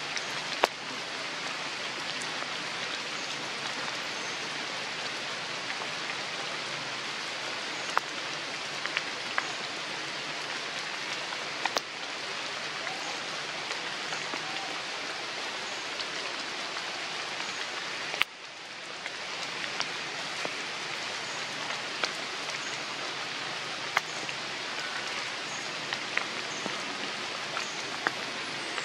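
Steady rain falling on forest foliage, an even hiss with a few sharp ticks here and there. The sound drops briefly about two-thirds of the way through, then builds back.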